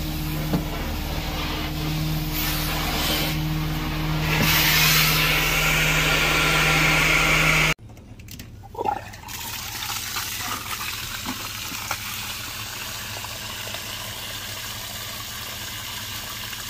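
Carpet steam-cleaning extraction machine running with a steady hum while the wand sucks up water with a rushing hiss that swells a few seconds in. The sound cuts off abruptly about eight seconds in, leaving a quieter steady noise.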